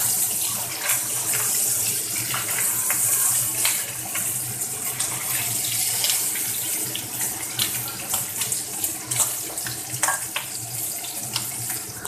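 Chicken pieces sizzling in hot oil in a wok, a steady frying hiss, with the wooden spatula clicking and scraping against the pan as it stirs. A steady low hum runs underneath.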